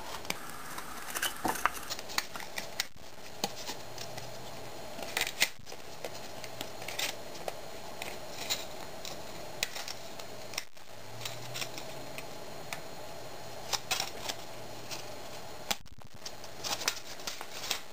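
Scissors cutting through the thin aluminium wall of a pop can: a run of short, irregular snips and crinkles as the cut works around the can.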